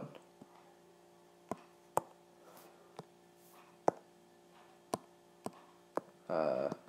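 Scattered sharp single clicks, about seven over several seconds, from input on a digital whiteboard while a drawing is partly erased, over a faint steady hum. Near the end comes a brief vocal sound.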